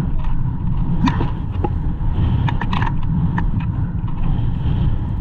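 Strong wind buffeting the microphone: a loud, steady, blustery rumble, with several short sharp knocks and clicks through it.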